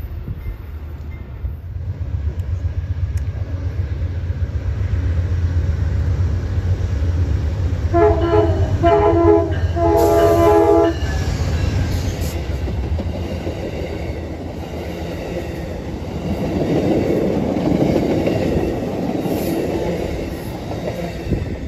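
Amtrak passenger train led by a GE Genesis diesel locomotive approaching and passing close by, its engine a low steady rumble. About eight seconds in, the locomotive's multi-chime horn sounds three times: two short blasts and then a longer one. Later the cars rumble past on the rails.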